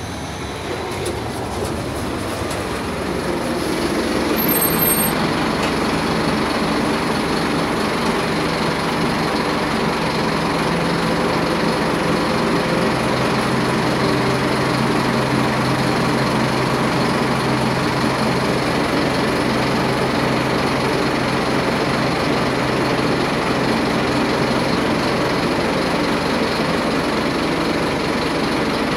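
Scania OmniCity CN270UB city bus's diesel engine close by, growing louder over the first few seconds as the bus pulls in, then running steadily at idle while it stands at the stop.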